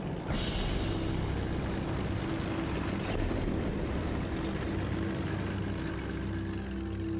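A sudden whoosh a moment in, then a loud, dense, steady engine-like rumble with a low drone running under it.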